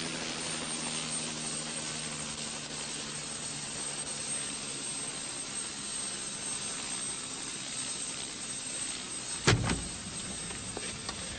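Helicopter engine running steadily on the ground, a constant hiss-like drone with a low hum that fades over the first couple of seconds. A single thump about nine and a half seconds in, followed by a few light clicks.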